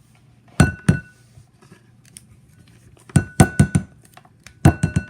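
Hard utensil clinking against a ringing bowl: two knocks about half a second in, then quick clusters of four or five clinks about three seconds in and again near the end.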